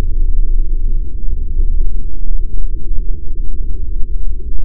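Loud, deep rumble buffeting the microphone, with a few faint ticks from about two seconds in.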